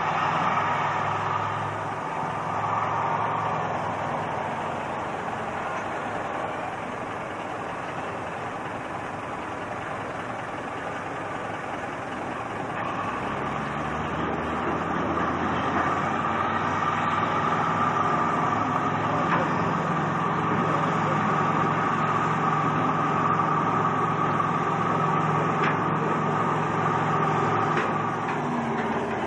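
Engine of a wheeled tractor with a front dozer blade running steadily as it drives slowly. It gets louder about halfway through.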